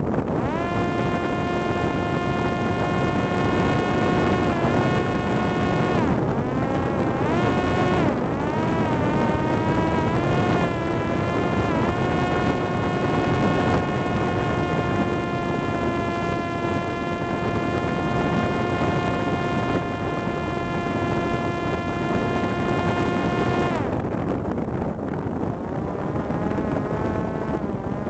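Parrot Disco fixed-wing drone's electric motor and propeller whining at a steady pitch over rushing wind. The pitch dips and wavers several times in the first half as the throttle changes, then holds steady before dropping away to a fainter, lower whine near the end.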